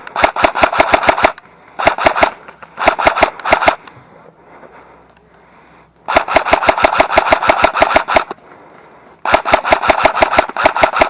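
Airsoft electric rifle firing close by in five rapid bursts of evenly spaced shots, with short pauses between them and a longer pause around the middle.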